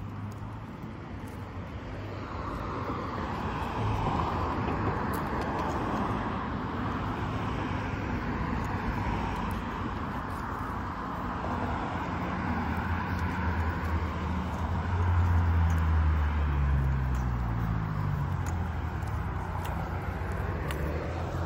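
Street traffic noise, with a car passing close about two-thirds of the way in, its engine note falling as it goes by.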